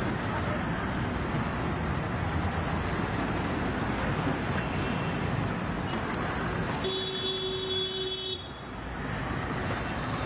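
Street traffic noise, a steady hum of vehicles and street ambience. About seven seconds in, a steady tone sounds for about a second and a half.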